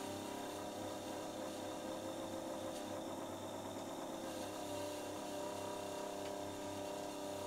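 Vintage watchmaker's lathe running steadily on its belt-driven electric motor, a steady hum and whine, while a hand graver turns a small piece in the chuck.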